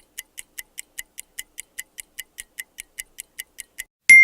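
Mechanical microwave dial timer ticking steadily, about five ticks a second, then its bell dings once near the end as the timer runs out, the ring fading slowly.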